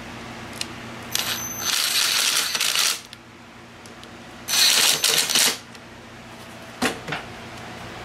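Ryobi 18-volt cordless impact driver run twice, tightening a hose clamp's screw: a burst of about two seconds that starts with a high whine, then a shorter burst of about a second. A single short click follows near the end.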